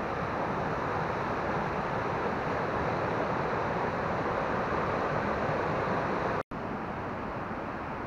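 Mountain stream rushing over small rocky cascades: a steady, even rush of water. About six and a half seconds in it cuts off for an instant, and a slightly quieter steady rush follows.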